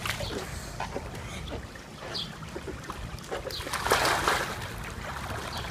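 Pool water splashing and sloshing as a swimmer pushes off the wall and kicks and strokes through it, with the loudest splashing about four seconds in.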